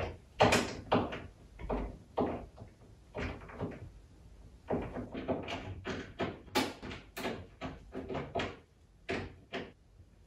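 An IKEA KLEPPSTAD flat-pack wardrobe being put together: a rapid, irregular run of knocks and clacks as its panels, door and hinges are handled and fitted.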